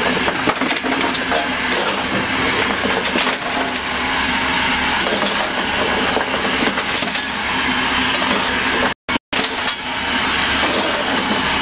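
Steel coal shovel scraping into the coal in a steam locomotive's tender and throwing it into the firebox, lumps of coal clattering and knocking, over the steady running noise of the locomotive in the cab. The sound cuts out twice, briefly, about nine seconds in.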